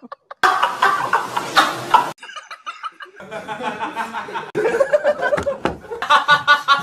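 Young men laughing hard in a string of short clips: repeated bursts of rhythmic, pulsing laughter, with a brief silence near the start and a quieter stretch about two seconds in where the clips change.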